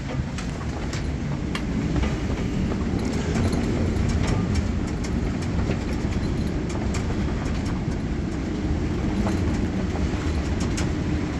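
Steady low rumble of a moving vehicle, with many scattered light clicks and rattles.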